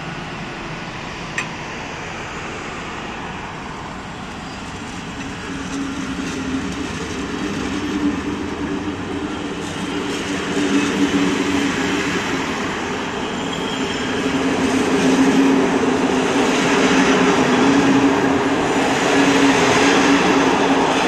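Electric-hauled passenger train's coaches rolling past on the rails, wheels and bogies rumbling and clattering, getting steadily louder toward the end. A single sharp click about a second and a half in.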